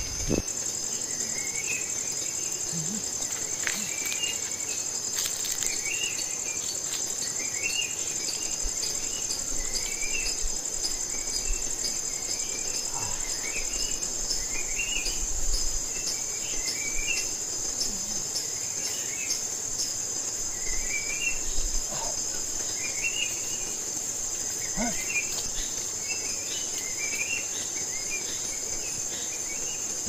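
Steady high-pitched drone of insects in tropical forest, with a bird repeating a short chirping phrase about once a second.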